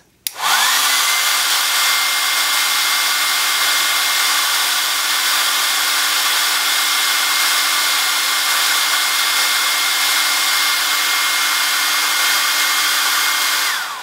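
Hair dryer, rated 1,875 watts, switched on at its high setting with a click. Its motor spins up within half a second to a steady whine over the rush of blown air. It runs without change and is switched off near the end, the whine dropping away.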